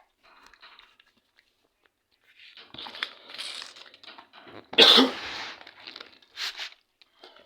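Foil cat food pouch being handled and torn open: crinkling and rustling, with the loudest rip about five seconds in and a shorter one near the end.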